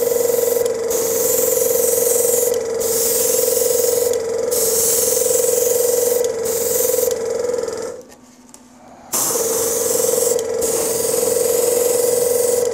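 Airbrush spraying a thinned dark yellow wash as a filter: a hiss that stops and starts several times as the trigger is worked, over a steady hum. Both drop out for about a second near the two-thirds mark.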